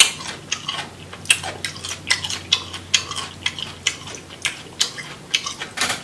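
Close-miked eating sounds from a crawfish boil: chewing, sucking and lip-smacking that come through as a run of short, irregular wet clicks.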